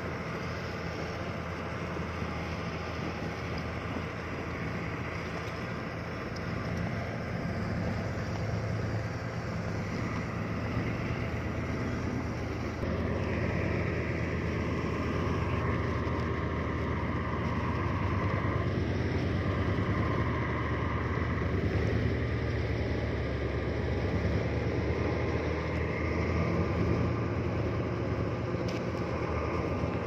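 Diesel engine of heavy earthmoving machinery running steadily under work, growing louder a little under halfway through, with a higher whine joining in after that.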